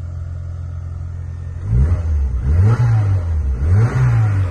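1995 Rover 100 Kensington's engine idling, then revved three times from about two seconds in, its pitch rising and falling with each blip of the throttle. It has just been started and is warming up.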